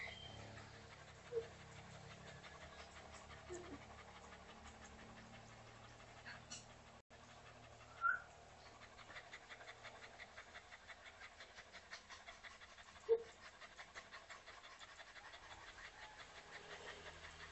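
Dog panting with its tongue out in a quick, even rhythm, faint at first and clearer in the second half. A few brief sharp sounds stand out, the loudest about eight and thirteen seconds in.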